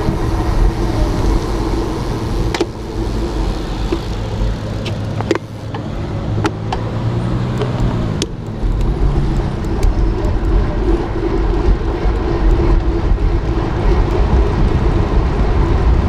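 Road traffic and cars going by, heard from a moving bicycle, with steady road noise and a few sharp clicks.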